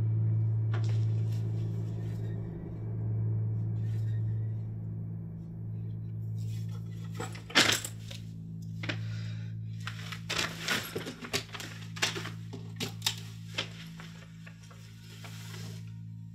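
A low, steady, ominous drone from the film score. From about seven seconds in come a run of sharp clinks and rattles from small hard objects being handled; the loudest is a single clink just past the seven-second mark.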